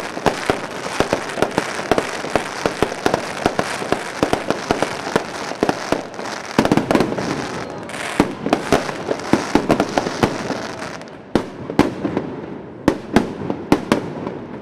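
Fireworks display: rapid sharp bangs over a continuous crackle, dense for most of the stretch, then thinning to separate bangs with short gaps near the end.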